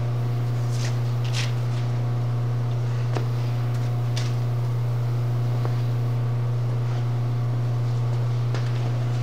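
Paint booth ventilation fans running with a steady low hum, with a few faint scuffs of a cloth being wiped over the bumper in the first few seconds.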